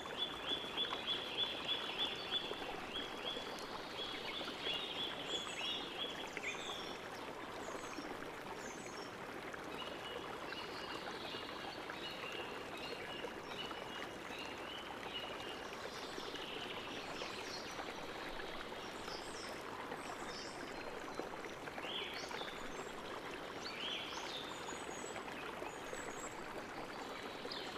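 Faint steady rushing noise like running water, with high chirps and trills over it. A rapid chirping trill runs for the first six seconds, and scattered chirps follow.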